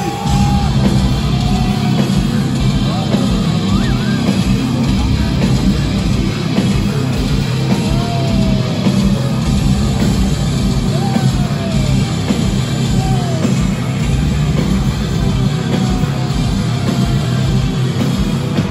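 Metal band playing live at concert volume: heavy distorted guitars, bass and drums, with a few short sliding high notes over the dense low end.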